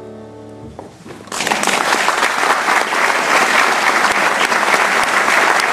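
The last chord of an upright piano piece ringing and then ending under a second in, followed by an audience applauding steadily, which is the loudest sound.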